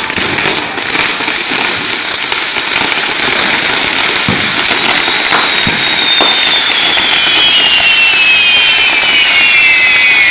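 Pyrotechnic castillo tower with spinning firework wheels burning: a loud, steady hissing rush of sparks. A few sharp pops come near the middle, and from about halfway several high whistles slide slowly downward together.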